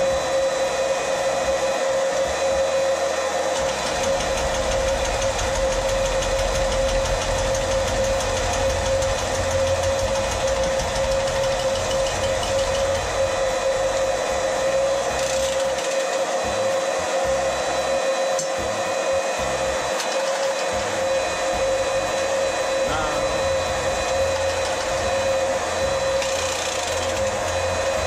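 Small electric pump running steadily with a continuous motor whine, draining water out of the old water heater tank.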